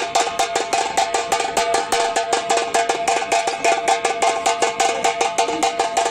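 Fast, even Tamil folk festival drumming, about eight sharp stick strokes a second, over a steady held tone.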